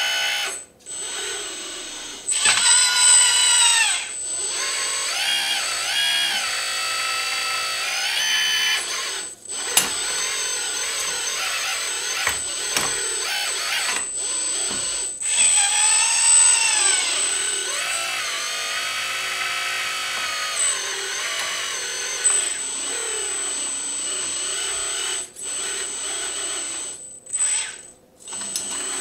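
Hydraulic pump of a Huina 336 (Kabolite K336) 1/16 RC hydraulic excavator whining as the boom, arm and bucket are worked. Its pitch sweeps up and down with the moves, and it cuts out briefly several times, about a second in, near the middle and near the end.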